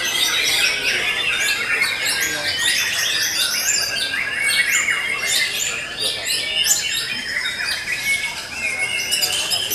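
Several caged songbirds singing at once: a dense, unbroken mix of fast, overlapping whistles and chirps.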